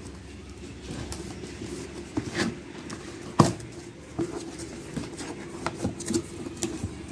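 Cardboard box and packaging being handled and opened: scattered knocks, taps and rustles of cardboard and paper, with one sharper knock about halfway through.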